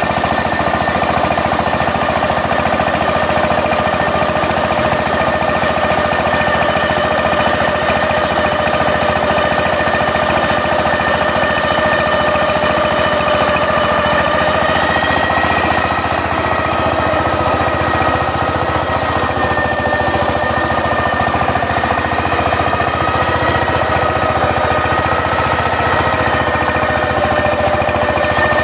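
Single-cylinder diesel engine of a two-wheel power tiller running steadily, with a rapid even knock and a steady whine over it.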